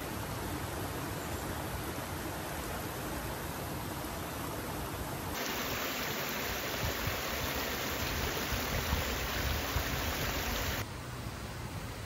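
Steady rushing noise, like flowing water, that changes abruptly about five seconds in and again near the end.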